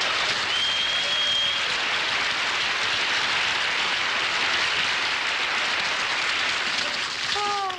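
Studio audience applauding and laughing at a comedy punchline, a dense steady clatter that eases slightly near the end.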